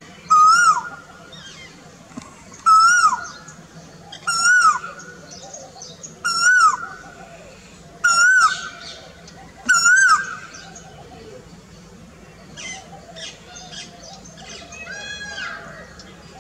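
Male Asian koel giving its loud advertising call: six whistled notes about every two seconds, each ending in a drop in pitch, then stopping. Fainter calls of other birds follow.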